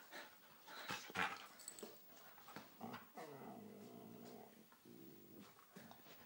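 Two dogs squabbling over a bone: scuffling with a few sharp clicks about a second in, then a drawn-out low growl from about three seconds in and a shorter growl near the end.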